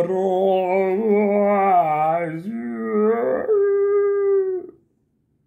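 A man's voice singing long, wavering wordless notes like a chant, ending on one steady held note that stops about four and a half seconds in.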